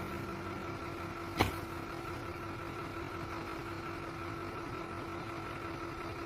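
An engine idling steadily, with one sharp click about a second and a half in.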